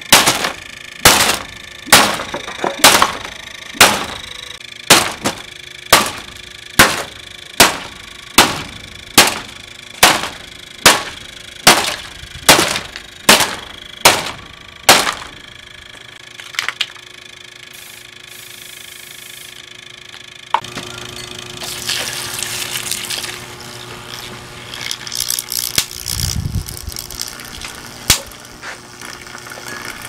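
A plastic Galaxy box fan being smashed: about eighteen sharp, evenly spaced blows on its grille, a little under one a second, each with a short rattling ring. They stop about fifteen seconds in, and after a few scattered clicks come crackling and crunching of broken plastic, with a dull thump near the end.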